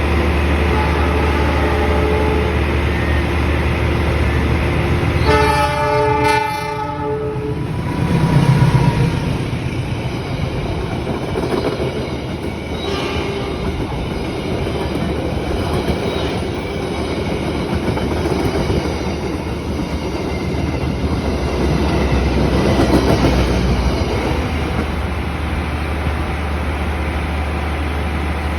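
Indonesian passenger train passing through a station: a diesel locomotive's heavy rumble, one horn blast of about a second and a half some five seconds in, then the cars clattering over the rails.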